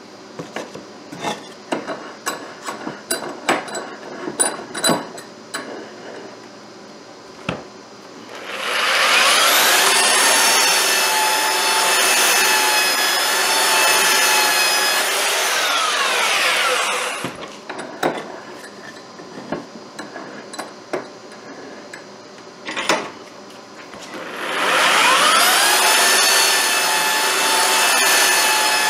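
An electric power tool's motor spins up, runs at a steady high whine for about seven seconds and winds down. A second run starts near the end. Before each run there are a series of clicks and knocks from tools and wood being handled.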